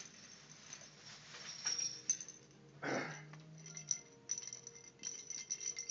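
Small bells inside a kitten's toy balls jingling and rattling in light, irregular tinkles as the kitten bats and carries the balls over carpet, with a brief louder noise about halfway through.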